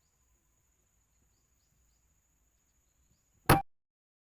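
A single short, sharp air rifle shot about three and a half seconds in. Before it, faint insects keep up a steady high buzz with small repeated chirps.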